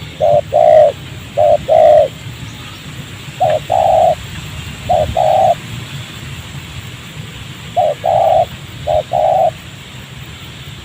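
Spotted dove (tekukur) cooing: six short-then-long coo phrases, in a pair, a pair, then after a gap a pair, and near the end a pair.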